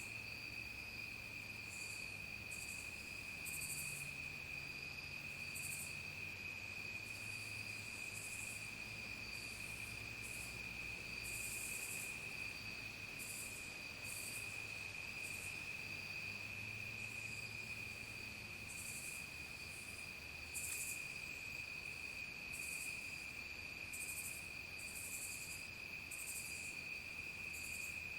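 Evening insect chorus: crickets holding one steady, unbroken high trill, with short, irregular high buzzy calls of other insects coming and going over it.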